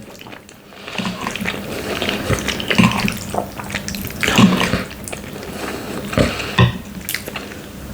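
Close-miked wet eating sounds: irregular chewing, lip smacks and slurps as a person eats khinkal, boiled dough and meat.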